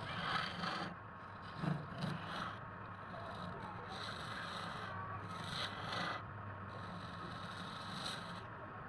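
Wood lathe running with a steady hum while a turning tool scrapes the spinning wood in several passes of about a second each. Two short knocks come about two seconds in.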